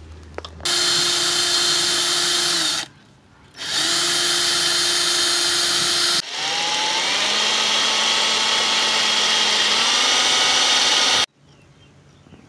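Electric drill running in three long runs, about two, two and a half and five seconds long, each a steady motor whine, boring holes in PVC pipe for chicken-waterer nipples. The pitch climbs at the start of the last run and steps up again near its end, then cuts off sharply about eleven seconds in.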